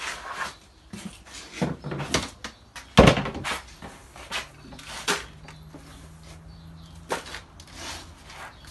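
Knocks and clatter of a feed bin and a plastic tub being handled, with rustling as horse feed is scooped out. One sharp knock about three seconds in is the loudest.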